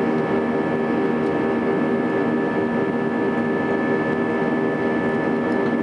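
Airbus A320 jet engines running steadily in the climb after takeoff, heard from inside the cabin: an even rushing drone with a steady high whine over lower hums.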